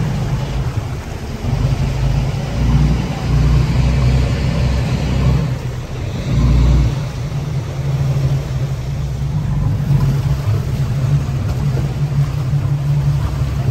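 Tour boat's engine running with a steady low hum, with a wash of water and wind noise over it and heavier low rumbles a few seconds in.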